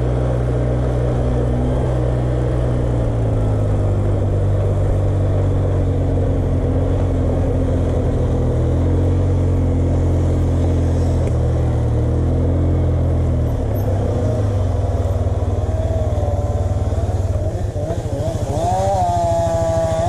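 Polaris 700 EFI ATV engine running under way on a dirt trail, its pitch shifting up and down with the throttle. About two-thirds of the way through it eases off and runs lower.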